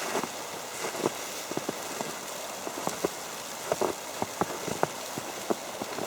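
Falling snow tapping irregularly on an umbrella overhead, many small ticks over a steady hiss.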